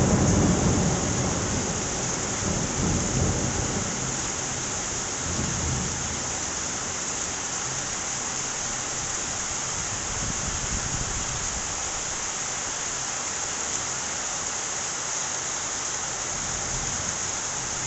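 Steady heavy rain hiss, with thunder rumbling at the start that fades away over the first few seconds and rolls up twice more before the rain goes on alone.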